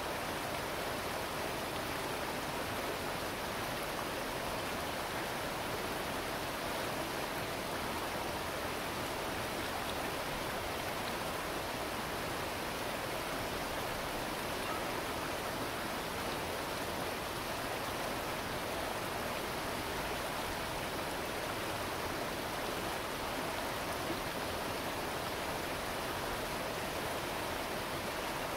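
Steady, unbroken rushing of flowing creek water.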